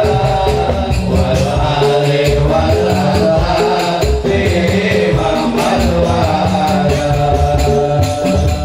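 Music without singing: a melody line over a pulsing bass, with a steady percussion beat.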